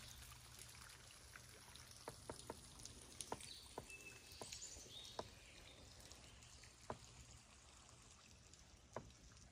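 Faint drips and small splashes of water from a canoe paddle, scattered through a quiet river background.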